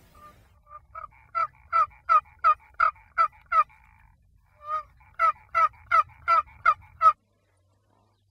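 Wooden turkey box call yelping like a hen turkey: a run of about nine quick yelps, about three a second, a short pause, then about seven more, stopping abruptly. The yelps imitate a young hen to draw gobblers in.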